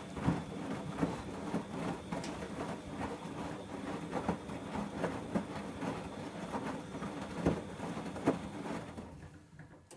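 Bosch Logixx 8 washing machine tumbling a load of towels in its wash phase: a steady rumble of the turning drum with irregular soft thumps, fading out as the drum slows to a stop near the end.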